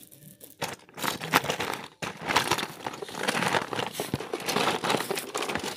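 Dense rustling and crinkling right against a phone's microphone, starting about a second in: handling noise as the phone is moved and rubs against cloth.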